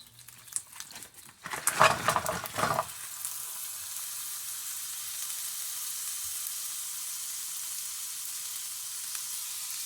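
Sausage going into a hot pan: a few light clicks and rustles, then a loud burst of sizzling and clatter about a second and a half in, settling into a steady sizzle of frying.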